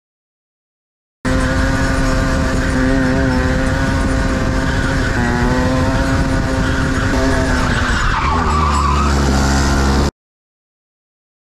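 125cc two-stroke kart engine running, heard from on board, its revs rising and falling through the corners. About eight seconds in, the revs drop sharply to a low drone, with a brief scrub of tyres skidding. The sound is cut off abruptly, with dead silence before and after it.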